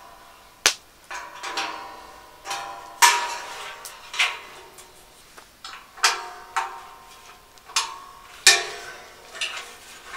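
Stainless-steel parts of a Feuerhand Tyropit fire bowl clanking together as they are handled and fitted: a series of irregular metal knocks, each ringing briefly.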